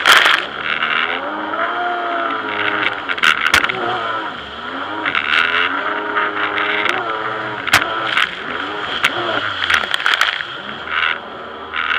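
Jet ski engine revving up and down several times while riding, with rushing water and wind noise that comes and goes and a few sharp splashes or knocks.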